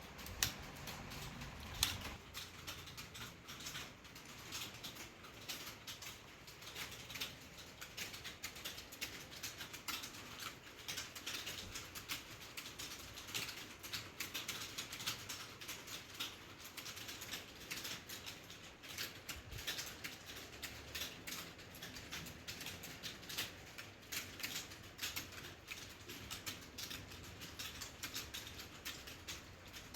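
Fast, continuous touch-typing on a keyboard: a rapid, uneven patter of light key clicks, several a second, kept up throughout.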